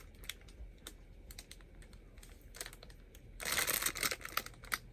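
Items and packaging being handled: scattered light clicks and taps, then a burst of crinkling and rustling about three and a half seconds in.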